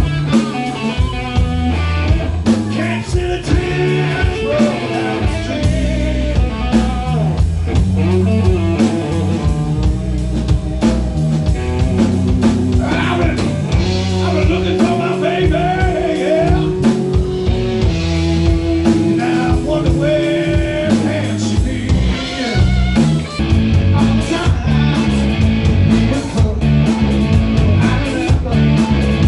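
A live rock-and-blues band playing: electric guitar, bass guitar and drum kit under a male lead singer.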